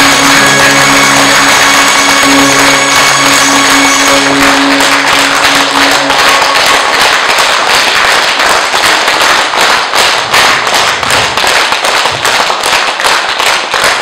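The last held chord of a song ends about six seconds in while an audience applauds; the clapping grows sparser toward the end.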